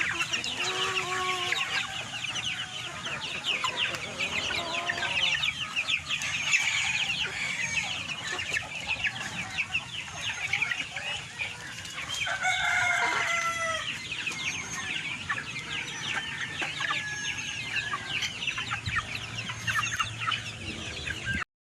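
A flock of chickens clucking and chirping continuously, with a rooster crowing once about twelve seconds in.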